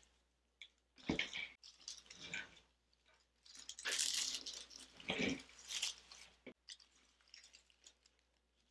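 Rustling and crackling of faux greenery, daisy stems and grapevine as stems are tucked into a grapevine wreath, in several short bursts, the longest about four seconds in.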